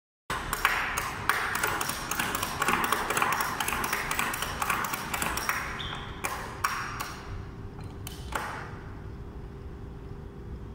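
Ratchet buckle of a 50 mm cargo lashing strap worked by hand: a quick run of sharp metal clicks for about five seconds, then a few single clicks.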